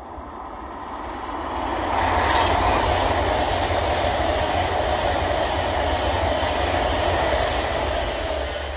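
Avanti West Coast Class 390 Pendolino electric train passing close by. Its rushing rail noise builds over the first two seconds, holds steady, and begins to fade near the end.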